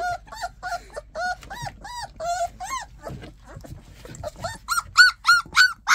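Young puppies, three to four weeks old, whining and squeaking in short rising-and-falling cries, several a second. After a brief lull about halfway through, the cries come louder and higher.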